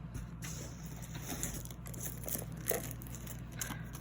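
Plastic packaging crinkling and rustling as it is handled, with scattered light clicks, over a steady low hum.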